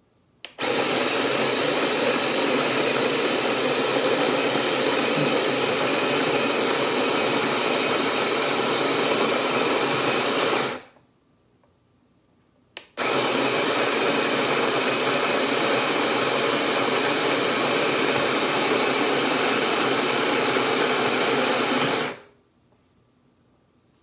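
OXO Brew conical burr coffee grinder grinding coffee beans in two timed runs of about ten seconds each. Each run starts with a click and cuts out quickly when the timer stops it, with a pause of about two seconds between the runs.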